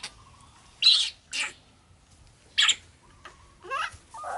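Baby monkey giving about four short, shrill squeals while being bottle-fed, the loudest about a second in.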